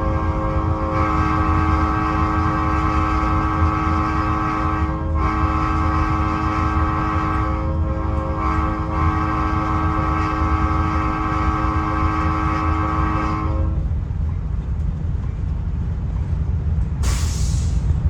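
Nathan AirChime P01235 five-chime locomotive horn sounding one long, steady chord, heard from inside the cab. Its upper notes briefly drop out three times, and the horn stops about 14 s in. The locomotive's low rumble continues underneath, and a short hiss comes near the end.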